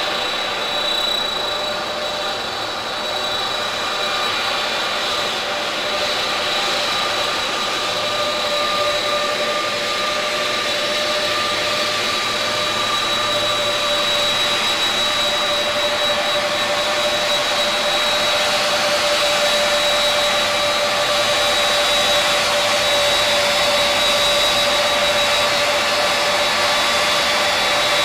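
Lockheed C-5A Galaxy's General Electric TF39 turbofan engines running as the aircraft taxis, a steady jet roar with high whining tones that grows slowly louder.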